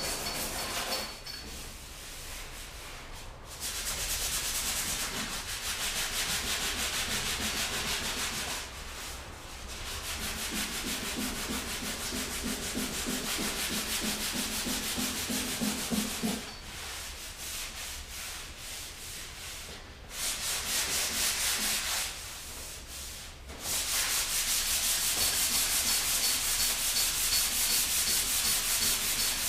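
Hand-sanding a Land Rover bonnet's bare metal panel: abrasive paper rubbed back and forth in quick strokes, in spells of several seconds with short pauses between. The panel is being roughed up to give body filler a key.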